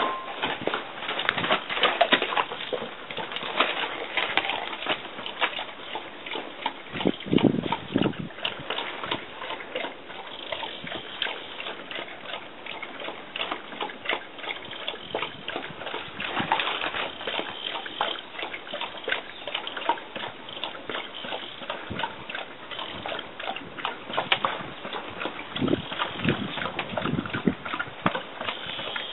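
A horse drinking from a bucket of water: irregular sloshing, splashing and slurping of water in the bucket.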